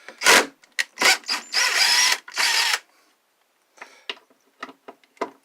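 Power drill running in two short bursts, about a second and then half a second long, after a sharp knock near the start; light clicks and handling noises follow.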